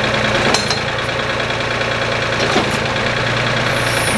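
Tractor engine idling steadily, with a sharp metallic click about half a second in.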